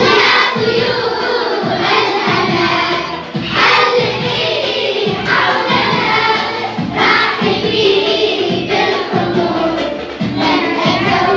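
A group of children singing a song together over musical accompaniment with a steady beat.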